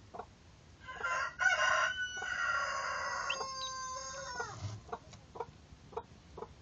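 A rooster crows once, a long call of about four seconds that ends on a falling note. Under it runs a steady series of short, soft, low clucks, about two a second.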